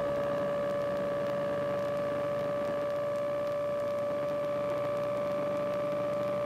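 Single-engine light aircraft at full takeoff power, heard from inside the cockpit: the engine and propeller make a steady drone with a strong, even tone through the takeoff roll and lift-off. The engine is a Corvair-conversion engine.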